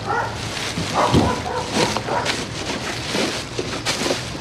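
Plastic garbage bags rustling and crinkling as trash is rummaged through by hand, with a few short pitched yelps about a second in.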